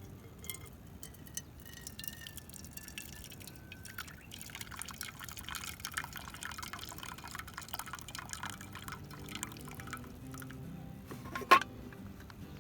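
Freshly boiled coffee trickling from a pot into a cup for several seconds, starting about four seconds in. A single sharp knock follows near the end.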